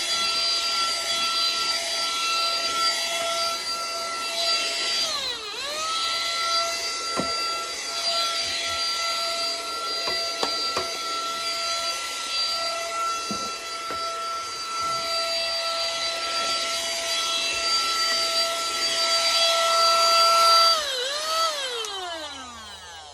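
Mini handheld vacuum cleaner's motor running with a steady high whine. The pitch dips briefly and recovers about five seconds in, then near the end the motor is switched off and winds down in a falling whine.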